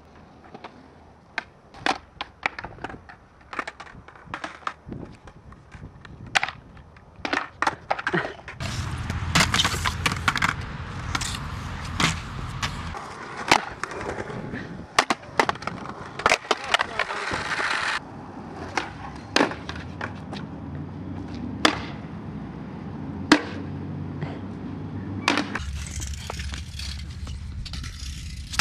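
Skateboard being ridden on concrete: wheels rolling, with many sharp clacks from the board popping and landing. The background changes abruptly several times between takes.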